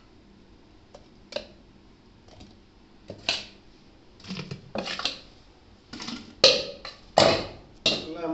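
Stainless steel pot and bowl clinking and scraping as green paste is scraped in: scattered sharp clicks at first, then louder clanks and scrapes in the second half.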